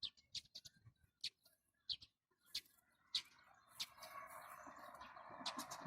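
Small birds chirping outdoors, short high chirps about every half second, with a faint steady hum of distant traffic and wind rising in the last couple of seconds.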